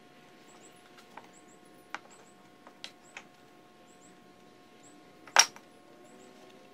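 Bar clamp being handled and tightened against a wooden board: a few light clicks and knocks, then one sharp, louder knock about five and a half seconds in.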